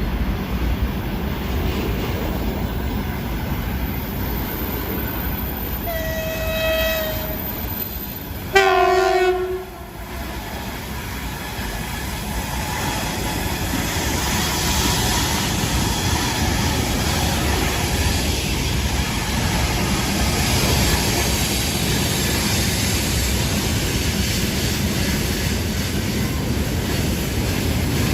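VL10U electric locomotive's air horn (typhon): a short single-note toot about six seconds in, then a louder blast of about a second with two notes. Under and after it, the steady rumble and wheel clatter of the train running on the rails.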